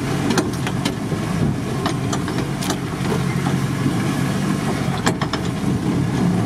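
Volkswagen Transporter T3 van's engine running steadily under way, heard from inside the cabin on a bumpy dirt track, with scattered sharp clicks and rattles from the body over the ruts.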